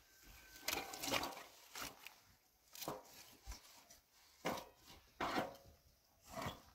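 Dry branches scraping and rustling over broken stone and concrete-block rubble as they are dragged and handled, in a handful of short, irregular scrapes.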